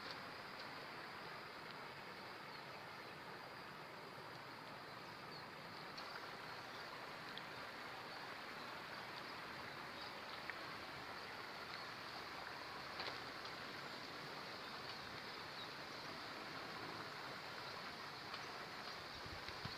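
Steady rushing of flowing river water, with a few faint ticks.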